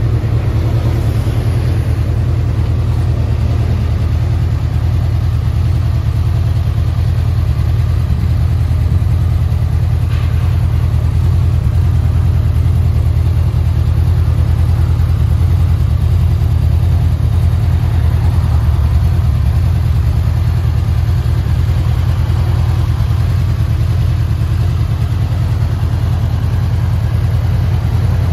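Honda VFR800F's V4 engine idling steadily in neutral.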